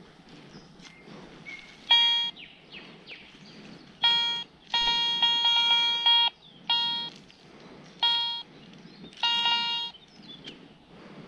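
Garrett ACE 400i metal detector beeping about six times at one steady pitch as the clump of dug-up earth is passed over its search coil, the longest beep about five seconds in and pulsing. The beeps are its target signal: the metal object is in the clump.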